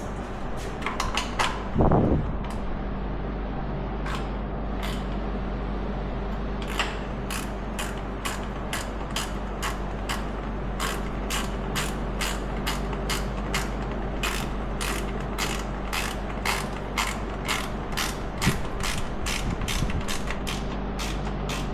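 Hand ratchet wrench clicking in quick runs of strokes, about two to three clicks a second through most of the stretch, with a dull clunk about two seconds in.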